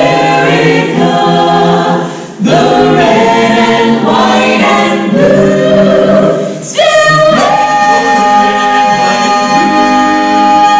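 Mixed men's and women's a cappella choir singing in close harmony. The voices break off briefly about two seconds in and again near seven seconds, where they come back with an upward swell into a long held chord.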